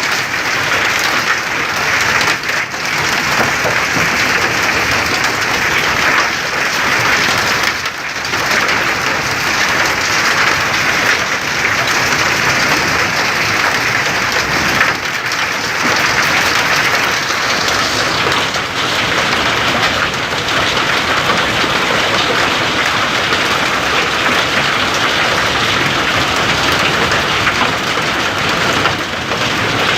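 Heavy rain falling in a steady, dense downpour.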